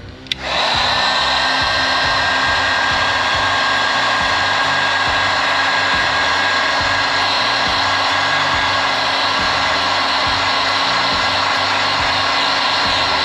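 Electric heat gun switched on with a click about half a second in, then running steadily: an even rush of air from its fan with a thin high whine.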